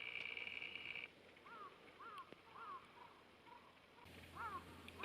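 A bird calling: a buzzy trill of about a second, then a string of short rising-and-falling chirps about half a second apart, the pattern starting again near the end.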